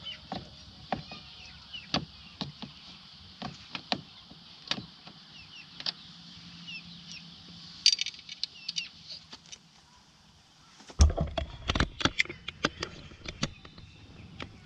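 Scattered clicks and knocks of hand work on a car's rear door trim panel as its screws are put back in, with a louder burst of knocking and handling about eleven seconds in.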